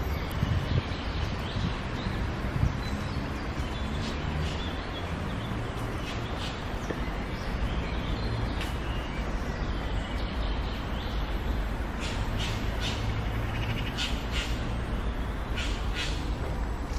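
Outdoor ambience of a steady low rumble of distant city traffic, with short high bird calls repeating from time to time, more often in the second half.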